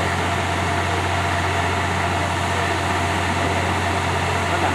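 Diesel engine of an Aizu Railway railcar idling steadily with the train standing at the platform. It is a constant low hum with an even mechanical drone above it.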